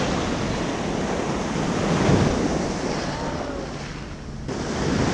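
Ocean surf washing in the shore break, a wash swelling up about two seconds in and easing off before another comes in near the end, with wind rumbling on the microphone.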